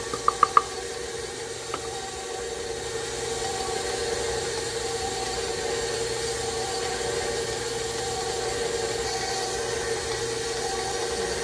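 Electric stand mixer running steadily with its flat beater working thick bread dough in a steel bowl, giving an even motor hum. A few quick ringing taps come right at the start.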